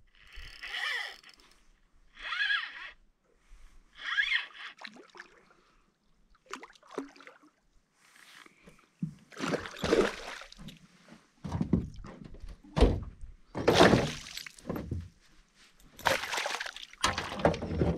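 Water sloshing and splashing around a small boat, with irregular thumps against the hull, loudest in the second half.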